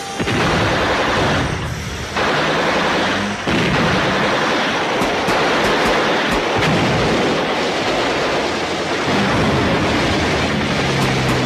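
Loud, continuous noise of gunfire and explosions, starting abruptly and surging twice in the first few seconds, then holding steady.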